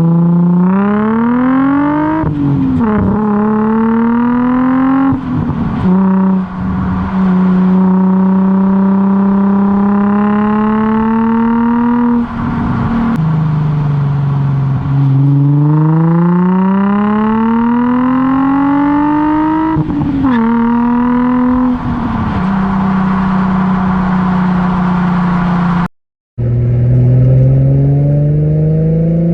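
Nissan 350Z's VQ35DE V6 through a Z1 single-exit straight-through race exhaust with the silencer removed, under way. The engine note climbs under acceleration, drops sharply at each gear change and holds steady while cruising. It breaks off for a moment near the end, then starts climbing again.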